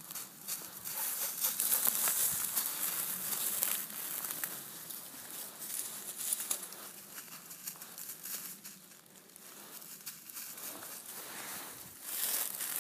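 Footsteps crunching through dry fallen leaves on a forest floor, an irregular crackling rustle. It is busiest in the first few seconds, thins out past the middle and picks up again near the end.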